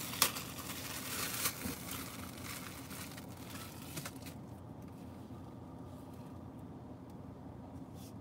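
Light rustling and handling noise with a few sharp clicks in the first half, then a quieter steady low hum inside a car cabin.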